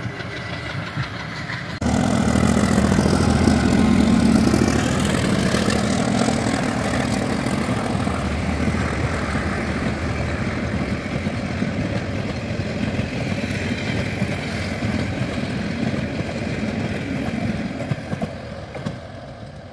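Passenger train coaches rolling along the rails: a steady low rumble with clatter. It jumps louder suddenly about two seconds in, then slowly fades as the train moves away.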